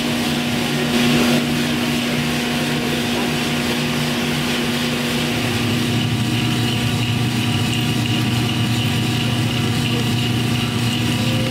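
Direct-flame drum coffee roaster running, with beans turning in the drum: a steady machine hum with one constant tone over a broad hiss. The low hum grows a little stronger about halfway through.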